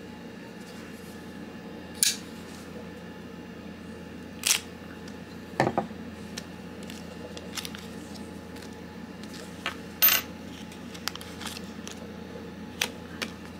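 A small clear plastic parts bag handled and opened by hand: scattered sharp crinkles and clicks, about half a dozen, over a steady low hum.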